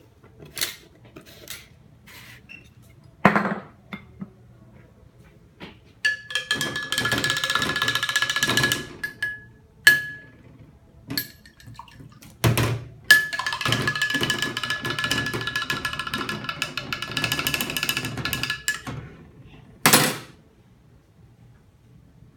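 Kitchen dishes and utensils being handled, with several sharp knocks and clinks and two stretches of a few seconds each of continuous rattling noise carrying a steady high tone.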